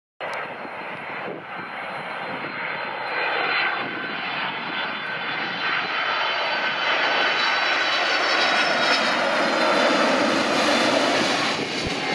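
Boeing 767-300 airliner's twin turbofan engines on landing approach, passing low overhead: a steady jet rumble with a thin high whine, growing louder to a peak about ten seconds in and then easing slightly.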